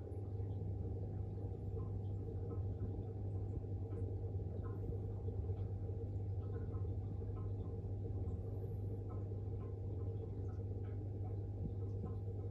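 Aquarium pump humming steadily at a low pitch, with faint irregular light ticks over it.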